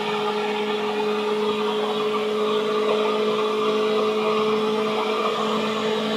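Seibu 2000 series electric commuter train running at a steady speed, heard from inside the car: an even rumble and rush of wheels on rail with a steady two-note hum from its electrical equipment.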